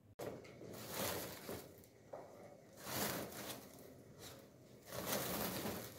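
Faint rustling of a plastic sack and shuffling of shoes being handled, coming in several short bursts.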